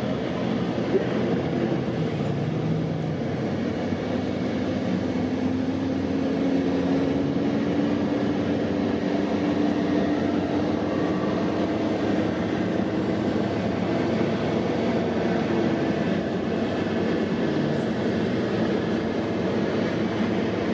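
Steady drone of engines running, with a tone that climbs slowly in pitch over several seconds in the middle.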